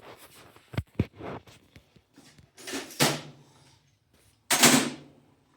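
Hand tools and sockets clattering in a metal toolbox: a few sharp clicks, then two louder sliding or scraping clatters of about half a second each, like a toolbox drawer being opened and shut while someone looks for a 3/4-inch socket.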